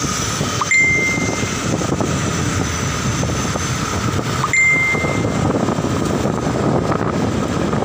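Motor scooter riding along, its engine, road noise and wind on the microphone making a steady rushing sound. A short click and a clear high ding sound about a second in and again near the middle.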